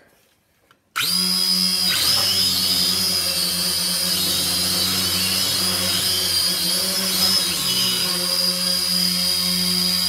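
Toy quadcopter drone's motors and propellers starting suddenly about a second in, then running with a steady high whine while the drone is held in the hand. The pitch wavers slightly now and then.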